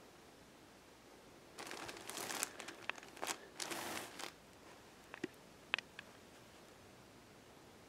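Plastic wrapper of a pack of disposable pants crinkling as the pack is picked up and turned over, followed by a few short clicks.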